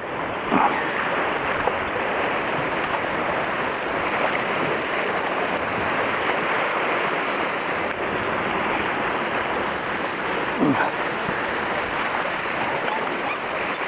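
Sea surf washing against shore rocks, with wind, a steady rushing noise. Two brief, short sounds stand out over it, just after the start and again near 11 seconds.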